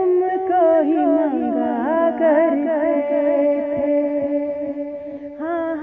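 A woman's voice singing a wordless melody with long held notes, wavering ornaments and pitch glides, a new held phrase starting near the end.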